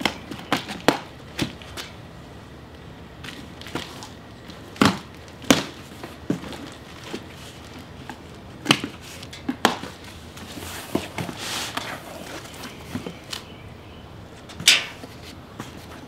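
Packing tape cut with scissors and a cardboard box opened: irregular sharp snips and crackles of tape and cardboard, with a longer rustle a little past the middle.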